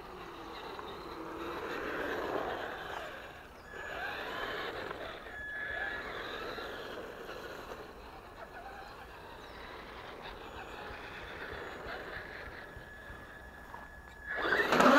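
Traxxas Stampede 4x4 electric RC truck's motor whining as it is driven, its pitch rising and falling with the throttle several times over the first half, then fainter and steadier. A louder burst of noise comes near the end.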